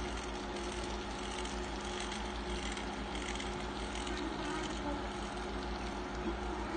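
Model train running past: the brass 4-6-0 model steam locomotive's motor and gearbox with a steady hum, and a long string of model boxcars rolling on the rails.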